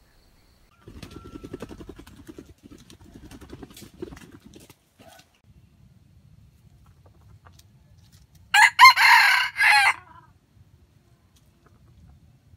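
Red junglefowl rooster crowing once near the end, a short crow broken into three parts. About a second in, a few seconds of low, rapid clucking come first.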